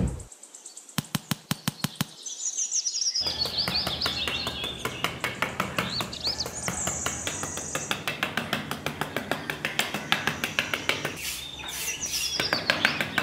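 Small metal hand trowel scraping and tapping across fine sand in quick repeated strokes, with birds chirping behind.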